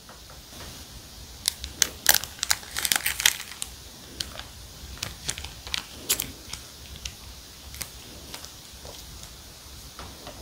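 Clear plastic wrapping crinkling and crackling as it is pulled off the cookies, in a dense flurry of sharp crackles about one and a half to three and a half seconds in, then scattered crackles.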